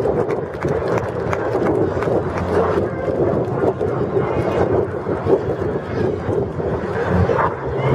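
Aerobatic display airplanes' engines droning in the distance, a steady noisy drone.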